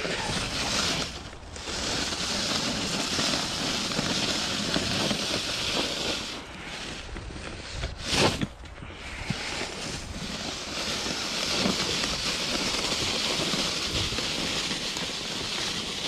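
Wheeled snow pusher's plastic blade scraping along a concrete sidewalk as it shoves snow, in two long pushes, with a sharp knock between them about eight seconds in.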